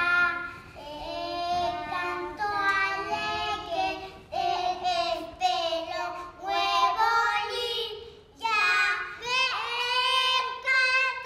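Two young girls singing a song together, in phrases of held notes with short breaks between them.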